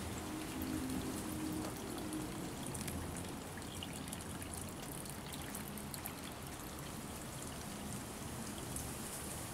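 Garden pond water trickling and splashing steadily, with a low hum underneath.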